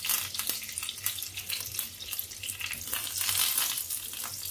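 Fresh curry leaves and dried red chillies sizzling and crackling in hot oil with mustard seeds, a South Indian tempering, with rapid pops throughout.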